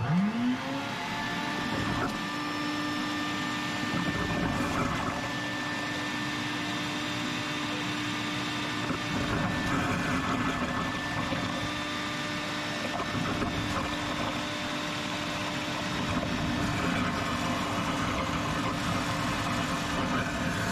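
A motor starts up, its pitch rising quickly and then holding steady as it runs.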